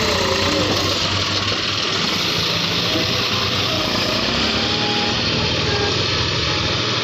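John Deere 5310 tractor diesel engine running steadily under load.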